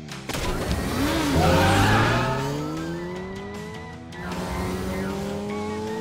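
Cartoon race-vehicle engine sound effects revving up, their pitch climbing steadily over several seconds after a noisy rush of take-off, with background music.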